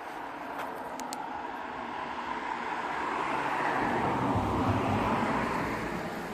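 A car passing by on the street: tyre and engine noise grows, is loudest about four to five seconds in, then fades away.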